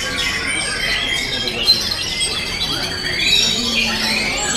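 Several caged white-rumped shamas (murai batu) singing at once: a dense, continuous tangle of overlapping whistles and chattering phrases that slide up and down in pitch.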